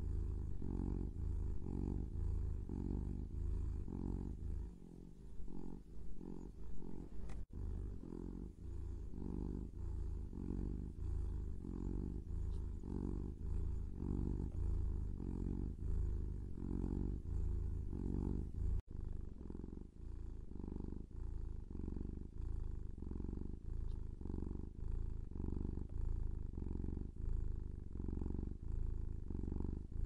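Kitten purring close up: a steady low rumble that swells and fades about once a second, with two very brief breaks.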